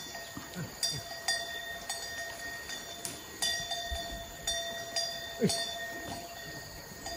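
A metal livestock bell clanking at an uneven rhythm, about ten strokes, each ringing on at the same pitch. A few short, low sounds that fall in pitch come in underneath.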